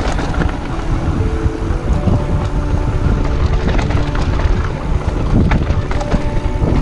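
Wind buffeting the microphone of a handlebar camera on a mountain bike, with the rattle and crunch of the bike's tyres and frame over a rocky gravel trail.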